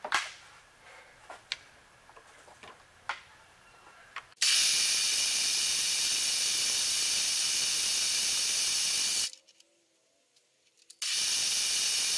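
A few light clicks, then a loud, steady high hiss from about four seconds in: a drill bit cutting holes in an aluminium disc, with the sound sped up along with the accelerated footage. It cuts off suddenly for about two seconds and starts again near the end.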